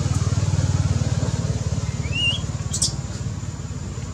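Low, steady rumble of a motor running. A short rising squeak comes about two seconds in, followed by a brief high chirp.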